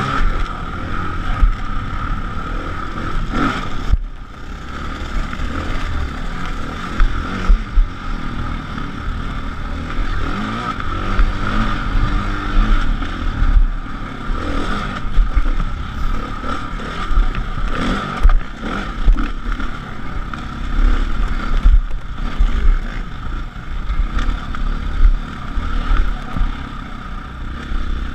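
Dirt bike engine running steadily under way on a rough dirt trail, heard from the bike itself, with heavy low wind rumble on the microphone and a few sharp knocks.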